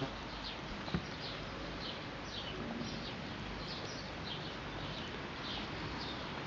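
A small bird chirping over and over: short, high, falling chirps about two a second, over a steady outdoor hiss. A couple of faint knocks come near the start.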